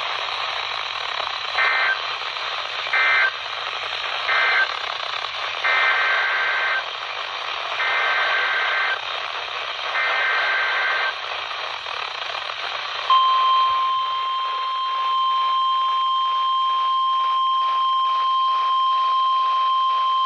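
NOAA Weather Radio broadcast from transmitter WXL42 over static hiss. Three short warbling SAME data bursts (the end-of-message code closing the flash flood warning) are followed by three longer SAME header bursts that encode the new severe thunderstorm warning. About 13 seconds in, the steady 1050 Hz Weather Radio warning alarm tone begins and holds.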